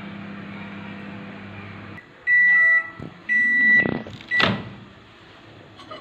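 LG microwave oven running with a steady hum that stops about two seconds in, followed by two long beeps and a short one at the same pitch signalling the end of the cooking cycle, then a sharp clunk.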